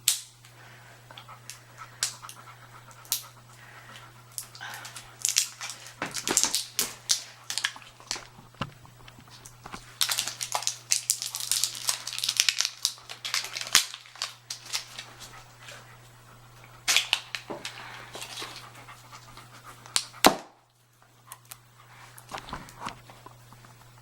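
Dogs panting, with runs of sharp clicks and crackling.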